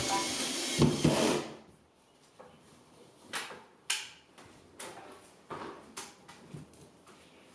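A loud hiss that stops about one and a half seconds in, then a few scattered sharp clicks and knocks, like tools or materials being handled.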